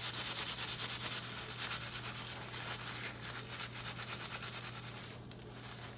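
A paper towel rubbed briskly back and forth over a handful of fresh lemongrass blades, a quick steady scrubbing rustle that eases off near the end. The blades are being bruised to release their oils before they go into a jar of oil to infuse.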